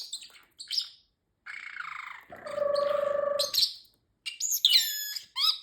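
Pet parrotlet chirping: a few short high chirps, then a longer buzzy, raspy call of about two seconds, then a quick run of high calls falling in pitch near the end.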